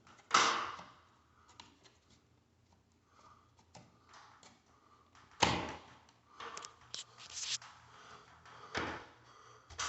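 Scattered knocks, clicks and scrapes as a smoke detector's new plastic mounting plate is handled and fitted back into place. There is one short scrape about half a second in and a louder one about five and a half seconds in, followed by a run of small knocks.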